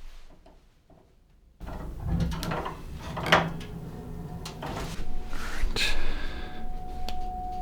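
Propane heater giving off a steady high-pitched tone that starts about five seconds in and grows stronger, an unusual noise for this heater. It comes over a general rushing noise with several knocks and clatters.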